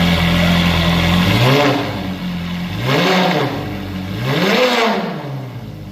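Ferrari F430 Scuderia's flat-plane V8, fitted with new headers, idling and then revved three times in quick throttle blips, each rising and falling back before it settles to idle.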